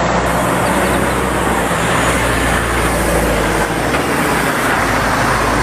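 Steady motor-vehicle and road-traffic noise, a low engine hum under a broad hiss, which starts and cuts off abruptly like an inserted sound clip.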